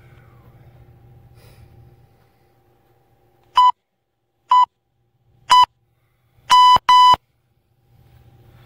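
Interval timer counting down the end of a rest period: three short electronic beeps about a second apart, then two longer beeps back to back, signalling the start of the next work interval.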